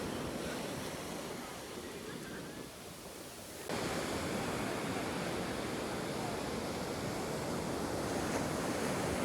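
Ocean surf washing on the beach as a steady rush of noise. It turns abruptly louder a little under four seconds in.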